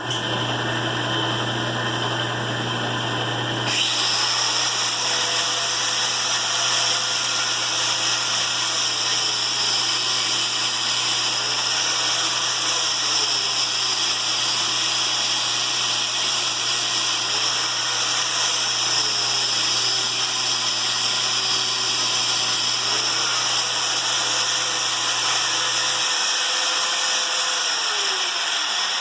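Cheap angle grinder motor running steadily as the drive of a homemade belt-type crankshaft polisher, a high whine with the belt running over its wheels. It gets a little louder about four seconds in.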